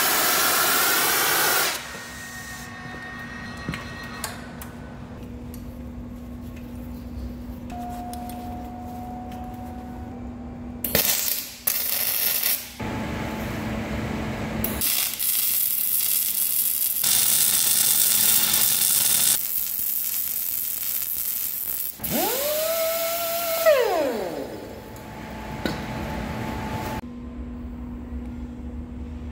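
A gas preheating torch hissing for the first couple of seconds, then several runs of MIG welding with metal-core wire under argon-CO2 shielding gas, each a steady hiss lasting a few seconds, over a steady low hum. Near the end there is a brief tone that rises, holds and then falls.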